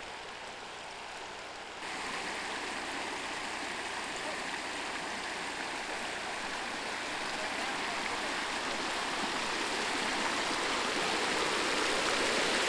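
Shallow mountain creek running over cobbles: a steady hiss of rushing water that jumps in level about two seconds in and grows gradually louder toward the end.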